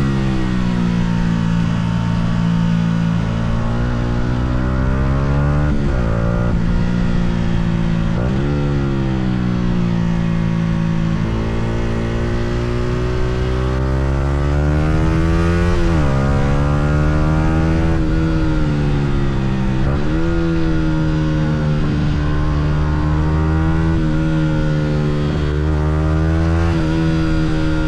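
Yamaha R125's single-cylinder four-stroke engine running on the move, its pitch climbing and then dropping back sharply about five times.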